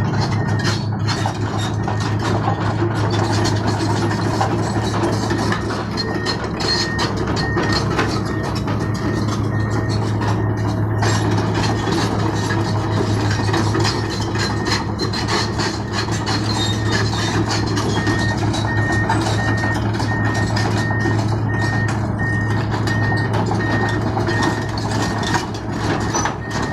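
Komatsu PC220 excavator's diesel engine running steadily under load while travelling, with its travel alarm beeping in a regular high-pitched pattern, about one and a half beeps a second, in two stretches.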